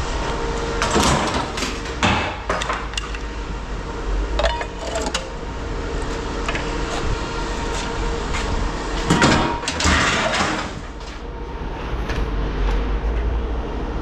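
Scrap metal being handled and set down: scattered knocks and clatters, the busiest stretch about nine seconds in, over a steady hum.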